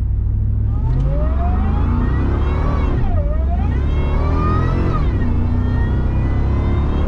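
The supercharged 5.4-litre V8 of a 2002 Ford F-150 SVT Lightning accelerates hard from a stop. The engine pitch climbs, drops at an upshift about three seconds in, climbs again, and drops at a second upshift near five seconds before pulling on steadily.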